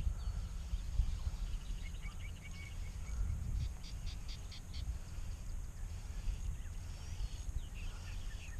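Small birds chirping in short trills and quick runs of high notes, several times over, above a steady low outdoor rumble.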